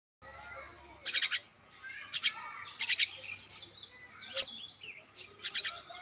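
Myna calling: bursts of rapid, harsh chattering notes about a second in, around two and three seconds in and again near the end, with shorter whistled notes in between.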